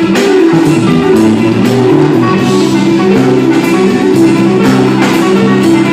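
A live band playing loudly in a sound check: sustained notes over drums, with cymbal hits recurring about once a second.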